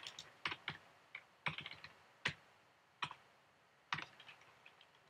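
Typing on a computer keyboard: about ten faint keystrokes tapped irregularly, with short pauses between them.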